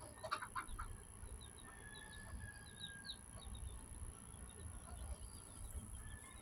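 Chicks peeping faintly: many short, high chirps scattered throughout, with the odd sound from the hen.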